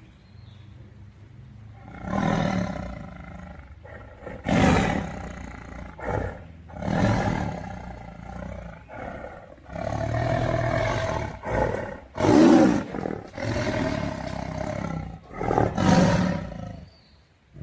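Big cat roaring in a long run of repeated calls, some short and some held for a second or more, with brief gaps between them.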